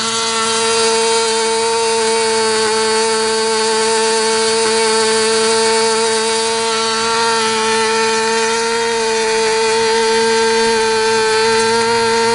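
SuperTigre G51 two-stroke glow engine running at high throttle on a test stand, swinging a 10x6 propeller at about 13,400 rpm with a steady, high-pitched note. The engine is still being run in after a rebuild and has not yet been peaked on its needle.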